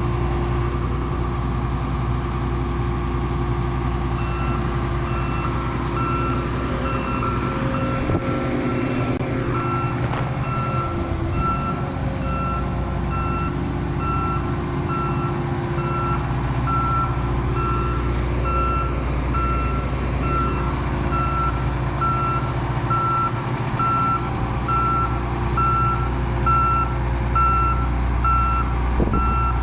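A combine's diesel engine running steadily, with its reversing alarm starting up about four seconds in and beeping evenly on and on: the machine is backing up.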